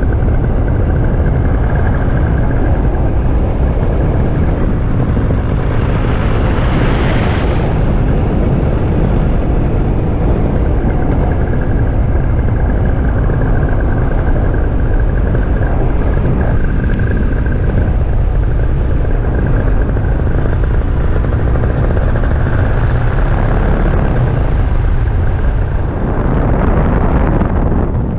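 Powered paraglider (paramotor) engine and propeller running steadily behind the pilot, loud and constant, with wind rushing past the camera in flight; two brief swells of hiss about a quarter and four-fifths of the way through.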